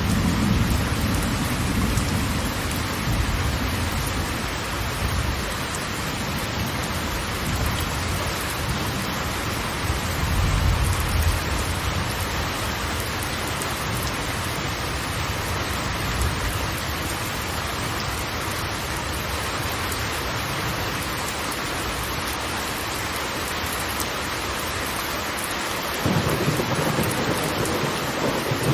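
Large waterfall rushing: a dense, even hiss of falling water under a deep rumble that swells and eases, swelling again suddenly near the end.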